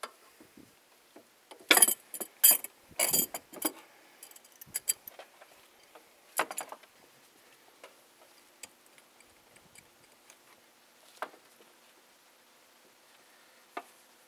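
Scattered clicks, knocks and light rattles of a power steering hose and its metal fittings being handled and routed by gloved hands in an engine bay. The sounds bunch together from about two to four seconds in, followed by a few single knocks.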